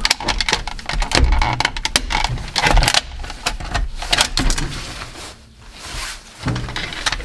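Irregular clicking, knocking and rattling of plastic and metal parts being pried and pulled apart by hand, with a brief lull a little over five seconds in.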